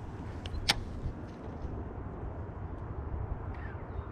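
Low, steady rumble of wind on the microphone, with one sharp click about three-quarters of a second in.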